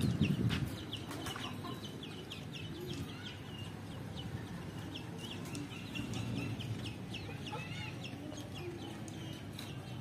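Caged market birds calling: many small birds chirping rapidly and continuously, with chickens clucking now and then, over a steady low background rumble. A louder burst of low street noise fades out in the first second.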